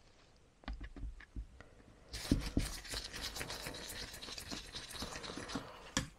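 Small screwdriver working at the screws of a Stromberg 175CD carburettor's choke housing, metal on metal: a few light clicks about a second in, then from about two seconds in a dense, rapid scratching and clicking as the blade grinds in the screw heads, ending on a sharp click.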